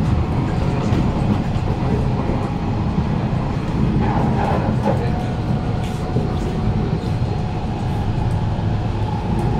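Kawasaki Heavy Industries C151 metro train running between stations, heard inside the carriage: a steady rumble of wheels on rail. About halfway through, a steady whine from its permanent-magnet traction motors comes in.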